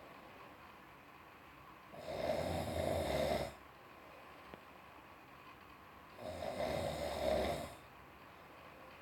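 Snoring: two long snores about four seconds apart, each lasting about a second and a half, with quiet between them.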